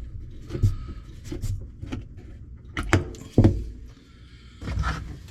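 Handling noises at a dishwasher's drain assembly during repair: several sharp knocks and clicks, the loudest about three seconds in, with some rubbing.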